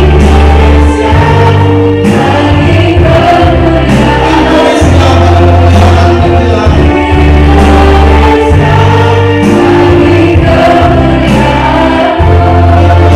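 Praise-and-worship song: a group of voices singing with instrumental accompaniment, deep bass notes held and changing every second or two.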